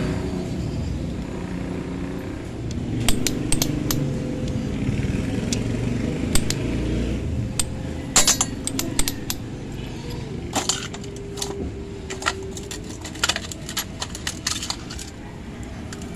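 Steel transmission gears and shafts of a Honda TMX 125 motorcycle gearbox clinking and clicking against each other as the gear clusters are handled and laid into a steel basin. Many sharp metal clicks, starting a few seconds in, over a steady low rumble.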